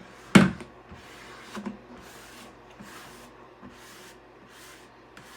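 Plastic Bondo spreader scraping in repeated strokes across a spalted maple cutting board, spreading a thin coat of oil into the wood, about two soft strokes a second. A single sharp knock about half a second in is the loudest sound.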